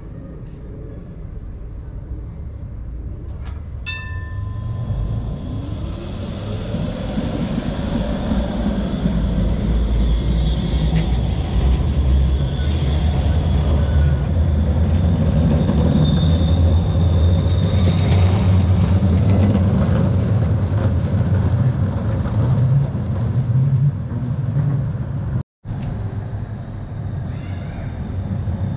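Tram running by on street track: a deep rumble of wheels and running gear builds, holds for several seconds and then eases off, with a thin high whine through it. A short ringing tone sounds just before the rumble builds, and the sound cuts out for a moment near the end.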